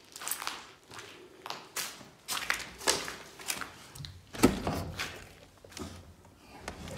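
Footsteps over dry leaves and debris on a concrete floor: irregular scuffing steps, with one heavier thud a little past halfway.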